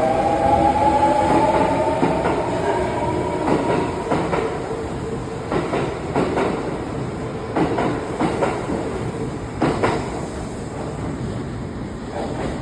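Kintetsu Hinotori (80000 series) electric train pulling away: a motor whine rising in pitch over the first couple of seconds, then the running rumble with the wheels clicking over rail joints at uneven intervals.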